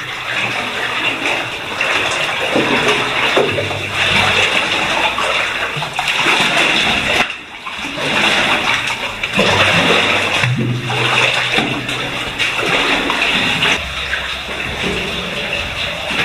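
Cave stream water rushing and splashing, loud and steady, briefly dropping away about seven seconds in.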